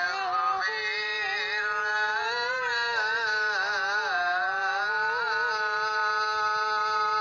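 A single voice singing a melismatic line of an Islamic doa, unaccompanied. It winds through ornamented turns, then settles into one long held note.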